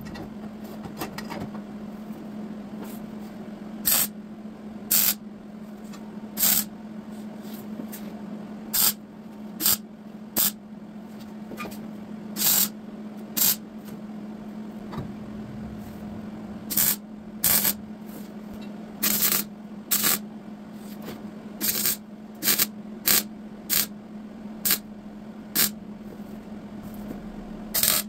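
Repeated short hissing bursts of spray, about twenty of them at uneven intervals, over a steady low hum of shop equipment.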